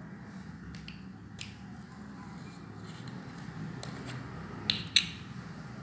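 Metal screw cap of a small glass bottle twisted by hand, giving a few short sharp clicks; the two loudest come close together about five seconds in, over a low steady hum.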